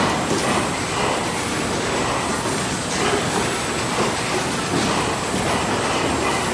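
Bottling line running: glass whisky bottles clinking and rattling along a metal conveyor over a steady machine din.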